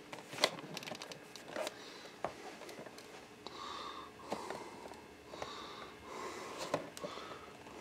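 Cardboard box and paper insert being handled, with sharp clicks and crinkles in the first couple of seconds. Then a few short breathy nasal breaths close to the microphone, each about half a second.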